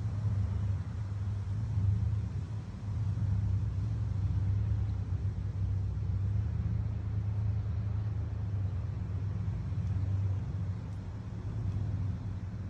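Low rumble of wind buffeting the microphone, swelling and easing in gusts.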